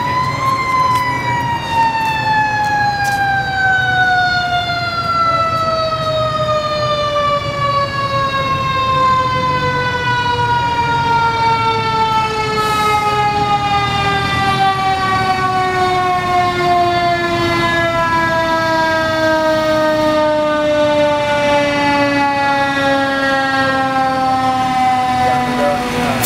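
Fire truck's mechanical siren reaching top pitch about half a second in, then winding slowly down in one long falling wail, over a low engine rumble.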